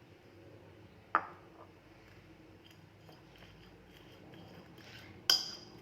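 Fork mashing boiled garlic cloves in a small dish: faint, soft scraping and squishing, with a sharp clink of the fork on the dish about a second in and a louder one near the end.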